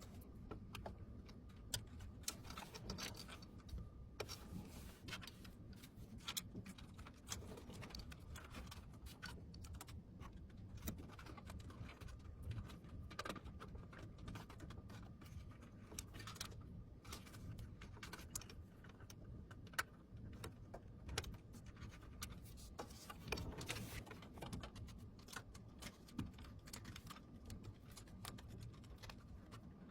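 Faint, irregular clicks and light taps of computer hardware being handled and fitted, over a low steady hum.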